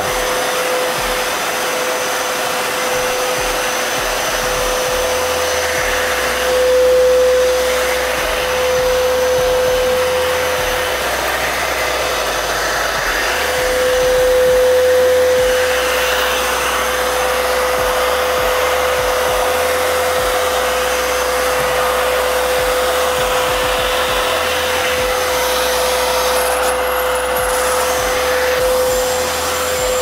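Arnica Vira washing vacuum cleaner with aquafilter running steadily, a constant motor whine over the rush of air, as its squeegee nozzle sucks cleaning water off window glass. The sound swells briefly twice.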